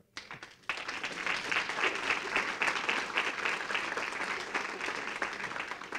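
Audience applauding: a burst of clapping that starts about a second in and tapers off near the end.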